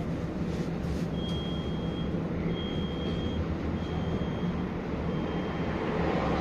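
Duewag NF6D low-floor tram with a steady hum from its drive equipment, and four high beeps about a second long each, the warning signal before the doors close.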